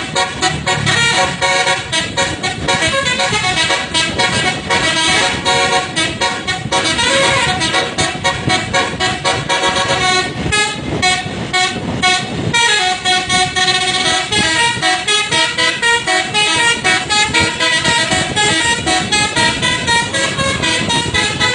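Telolet basuri bus horn, a multi-tone musical air horn, playing a tune in fast staccato pulses, its notes stepping between several pitches.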